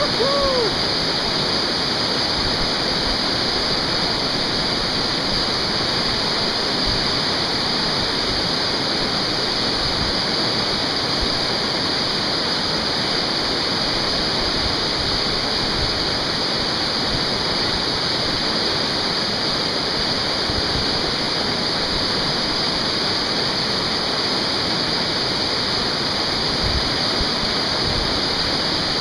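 Whitewater rapids on a river rushing and churning steadily, heard close up at water level. A brief pitched note rises and falls right at the start.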